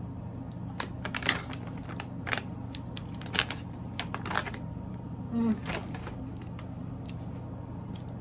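Plastic beef jerky bag crinkling and crackling as it is handled: a quick run of sharp crackles in the first half, then a few fainter clicks. A steady low hum runs underneath.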